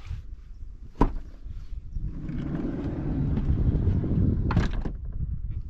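VW Crafter van's sliding side door being opened: a sharp click of the handle releasing the latch about a second in, the door rolling back along its runner, and a knock as it reaches its open stop near the end.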